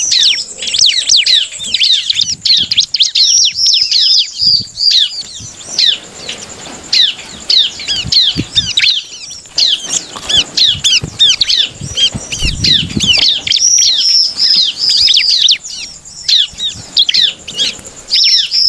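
Bar-winged prinia (ciblek) singing a fast, almost unbroken string of high, downslurred chirps: the continuous 'ngebren' challenge song of a bird in full voice. It flutters about its cage at the same time, with wing flaps and soft knocks against the bars.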